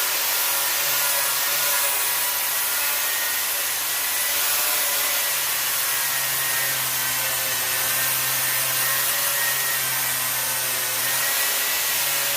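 A 13.5-amp angle grinder with a flap disc grinding rust and mill scale off a steel welding table top: a steady, loud, hissing grind with a faint whine.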